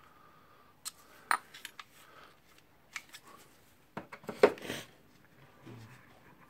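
Small metal tool parts clicking and clinking in hand as a little pin is worked into a hole in the housing: a few single sharp clicks, then a louder cluster of knocks a little past the halfway point.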